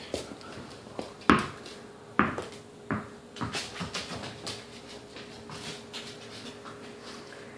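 A tennis ball bouncing on a wooden parquet floor: a few sharp knocks that come quicker and fainter, then settle into small taps.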